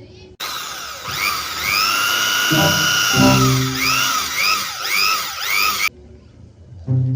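Toy electric drill whirring, its whine rising and falling over and over, starting suddenly about half a second in and cutting off suddenly near the end, with background music.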